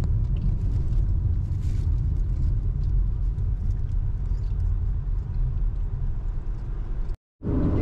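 Steady low road rumble of a car heard from inside the cabin while driving, cutting out briefly near the end.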